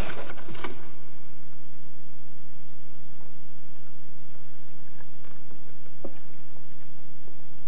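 A loud rushing noise dies away in the first second, leaving a steady low hum with a few faint scattered clicks and creaks.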